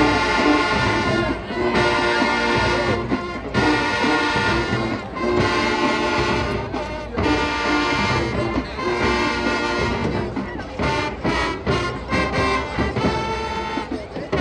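Marching band playing: brass chords with drums underneath. The held chords are cut off by short breaks every couple of seconds, with a choppier run of short hits about two-thirds of the way through.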